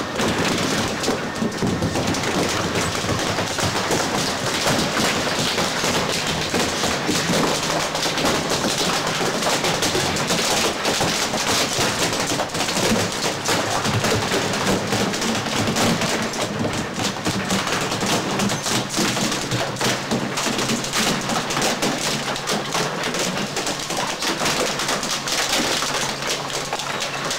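SSI Dual-Shear M70 two-shaft shredder tearing up a plastic boat shell: a dense, unbroken run of cracks and snaps as the hull breaks up between the rotary cutters, over the steady hum of the machine.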